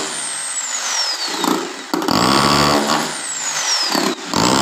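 Electric drill boring small holes into a wooden nest box: the motor winds down with a falling whine, starts up again about two seconds in, runs briefly and winds down, then starts a third time near the end.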